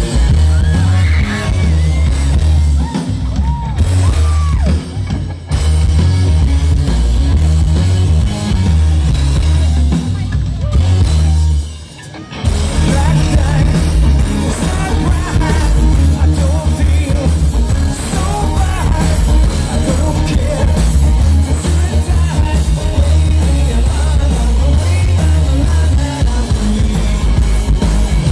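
Live rock band playing loud amplified music, with drums, electric guitar, keytar and singing, heard from the crowd in front of the stage. The music drops away briefly a little before halfway, then the band comes back in.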